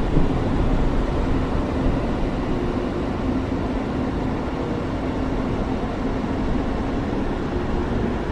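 Steady rain noise, deep and rumbling, with little high hiss and a faint steady hum underneath.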